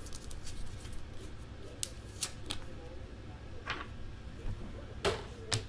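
Trading cards being handled and flipped through by hand: scattered light clicks and rustles of card stock, with a few sharper snaps.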